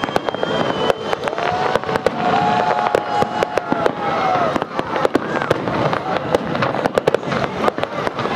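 Fireworks display: rapid bangs and crackles of aerial shells bursting throughout. A long held tone sounds over them from about a second in for roughly three seconds.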